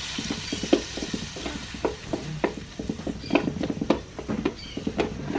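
Wooden spoon stirring diced tomatoes frying in a large metal pan. The spoon knocks and scrapes against the pan irregularly, several times a second, over a steady sizzle.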